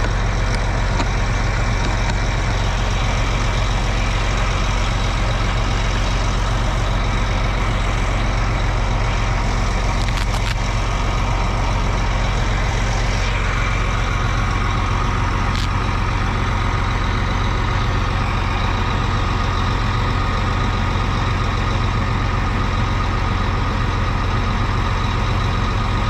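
Tractor engine running steadily, heard from inside the cab as a constant low drone, with a few faint clicks midway.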